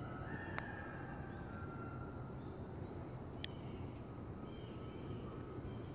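Quiet woodland ambience: a steady low background rumble with a few faint, thin bird calls and a couple of light clicks.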